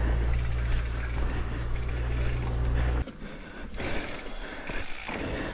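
Mountain bike rolling fast down a dry dirt trail: tyres hissing and crunching over dry leaves, with ticks and rattles from the bike. A heavy low rumble on the microphone stops suddenly about three seconds in, and the rolling noise is quieter after that.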